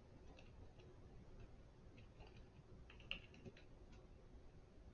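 Near silence with faint, irregular clicks and taps, the loudest about three seconds in.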